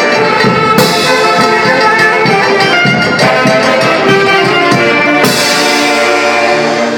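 Live band of saxophones, harp, violin and timbales playing dance music with a steady beat; near the end the horns hold a long chord.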